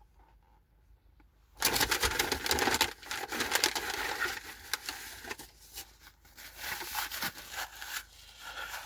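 Dense crinkling and crackling rustle of fast-food packaging being handled, starting abruptly about one and a half seconds in and going on in irregular clicks and crackles, easing off near the end.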